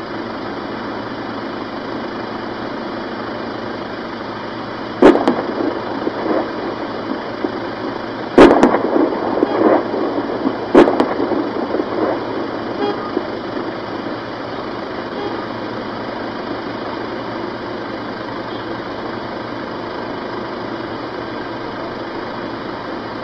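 Gunfire echoing across a town: three loud shots, about 5, 8 and 11 seconds in, each followed by a trail of echoing reports, over steady background noise.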